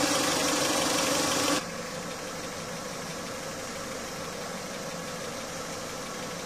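A machine running steadily, with a low steady hum. About a second and a half in it drops suddenly to a quieter level and keeps running.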